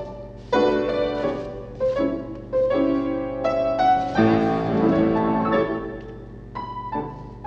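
Piano accompaniment for a ballet barre exercise: a run of struck chords, with a fuller chord about four seconds in that rings on and dies away, then lighter notes.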